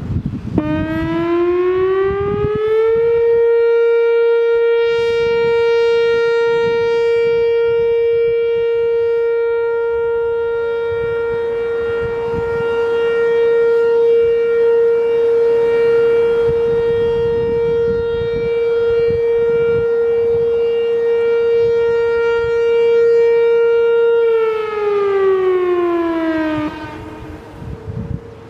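Whelen WPS-4004 electronic outdoor warning siren sounding a steady alert: the tone rises for about two and a half seconds, holds one steady pitch for about twenty seconds, then slides down and stops near the end.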